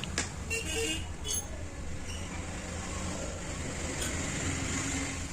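A few light taps of a carving chisel on wood in the first second and a half, then a steady low background hum.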